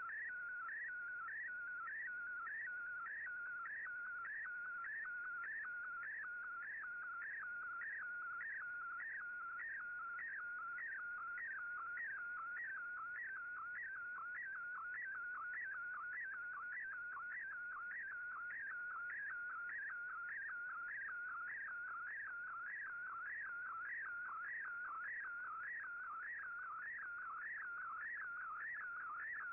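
Slow-scan television (SSTV) image signal received on shortwave: a warbling audio tone pulsing in a fast regular rhythm, each pulse one scan line of a picture being sent.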